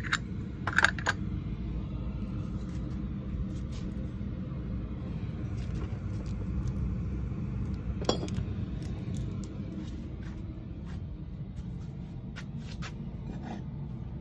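China and glass pieces clinking as they are handled and set down: a few sharp clinks about a second in and one more about eight seconds in, over a steady low rumble.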